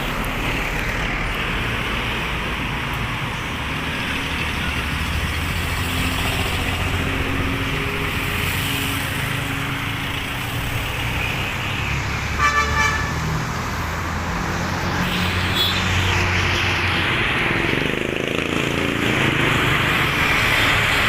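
City street traffic: motor vehicle engines running and passing, with a horn honking once, briefly, about twelve seconds in.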